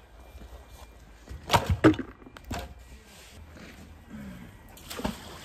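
Scrap iron from magnet fishing, a metal bar just pulled from the water, being set down: a quick cluster of hard knocks about one and a half seconds in, another knock about a second later, and a single thud near the end.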